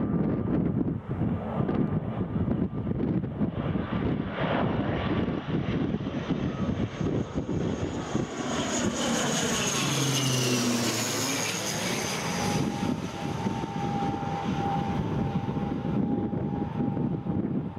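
ATR twin-turboprop airliner on landing approach passing low overhead: the propeller and engine drone sweeps down in pitch as it goes by about halfway through, then settles into a steady whine as it moves away. Gusty wind buffets the microphone throughout.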